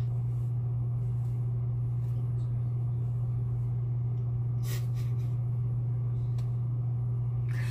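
A steady low hum at one even pitch, with a faint click about four and a half seconds in.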